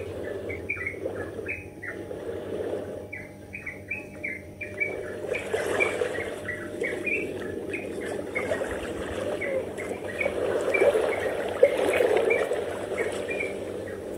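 Small birds chirping, a rapid run of short high notes repeating again and again, over a low rushing background that swells twice.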